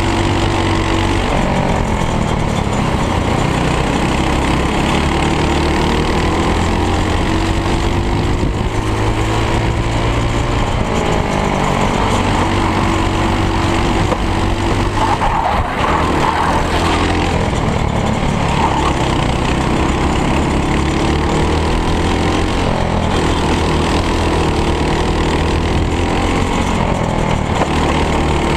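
Onboard sound of a racing kart's single-cylinder four-stroke Briggs & Stratton World Formula engine under racing load. Its pitch climbs on the straights and drops back into the corners, again and again.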